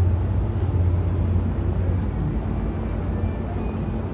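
Steady low rumble of the Staten Island Ferry's engines, a deep hum under a broad noisy background, easing slightly about halfway through.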